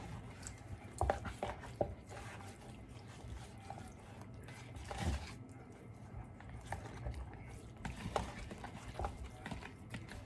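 Hands working a raw whole chicken for a marinade: scattered soft wet squishes and small knocks.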